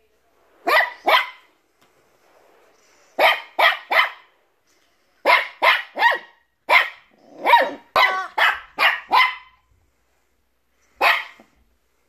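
Shih tzu–bichon frise puppy giving short, high yappy barks at a rubber chicken toy. The barks come in quick bunches of two or three, about fifteen in all, with a longer pause before a last single bark near the end.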